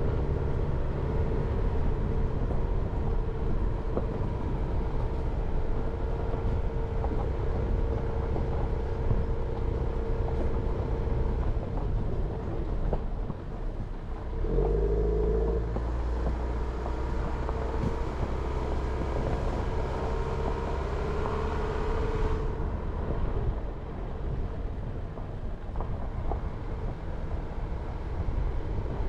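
Jeep Renegade driving along a road: steady engine hum with tyre and road noise. About halfway through, the engine note changes and the low rumble grows louder, then settles.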